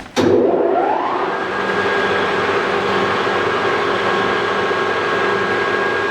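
Mori Seiki MR1500G toolroom lathe's spindle and geared headstock starting up suddenly. Its whine rises for about a second as it comes up to speed, then it runs steadily at about 765 RPM with a steady gear whine.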